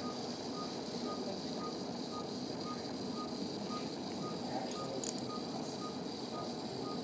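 Patient monitor beeping with the heartbeat: short, even beeps at one pitch, about two a second, over a steady background hiss.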